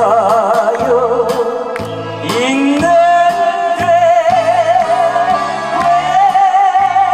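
A man sings a Korean trot song into a microphone over a backing track with a steady beat. A little past two seconds in he slides up into one long note with wide vibrato and holds it nearly to the end.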